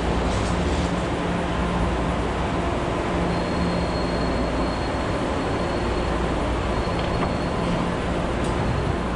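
Steady hum and rumble of BART trains standing at the platform with their doors open, with a faint high whine for a few seconds in the middle.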